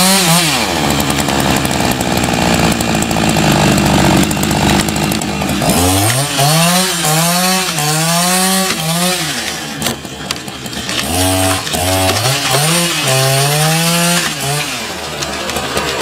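Chainsaw cutting, running steadily at high revs for about five seconds, then revving up and easing off in repeated surges.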